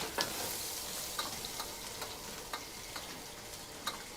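Food sizzling in a frying pan, a steady hiss with scattered light clicks of a utensil against the pan.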